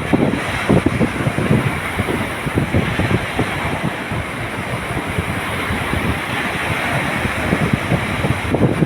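Ocean waves washing in steadily, with wind buffeting the microphone in irregular low gusts.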